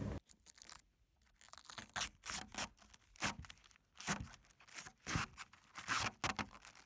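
Clear protective plastic film being peeled off a roof vent's plastic lid, crinkling and crackling in short, irregular bursts.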